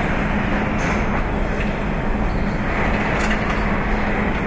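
Car assembly line running: a steady din of machinery with a constant low hum, and a couple of faint knocks from parts being handled.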